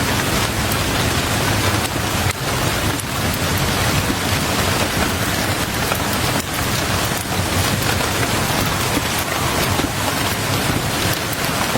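Heavy rain pounding on a window: a steady, dense hiss with scattered sharp taps of drops.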